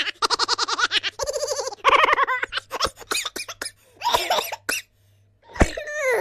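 Silly cartoon-style laughing sound effect: a high-pitched voice giggling and cackling in rapid, quick-fire bursts, broken by short pauses. About five and a half seconds in comes a sharp knock, followed by a cry that falls in pitch.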